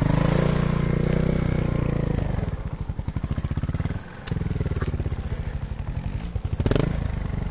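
Montesa trials motorcycle engine revving, then falling back to a low idle about two seconds in, with its separate firing pulses audible. Around four seconds in it briefly drops away, then picks up again, and a couple of sharp knocks or clatters come near the end.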